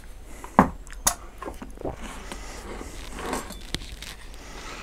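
A can of coconut milk being handled and opened: one sharp knock about half a second in, then a few lighter metal clicks and brief rustles.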